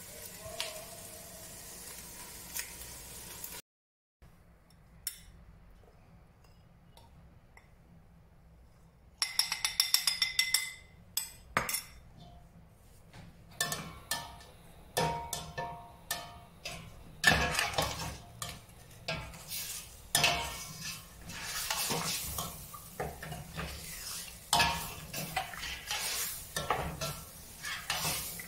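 A long-handled metal spoon stirs and scrapes beef browning in oil in a stainless steel pot, clinking against the pot's sides over a light sizzle. After a quieter stretch early on, it picks up with quick runs of clinks and scrapes.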